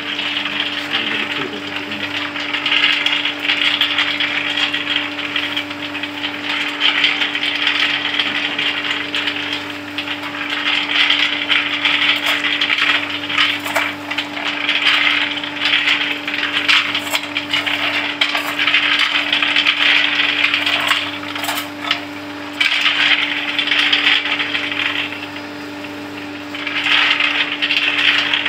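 Cashew nuts tumbling and rattling against the inside of a rotating stainless-steel coating pan, over a steady hum from the machine. The rattle swells and eases every two to three seconds as the nuts are turned over with a scoop.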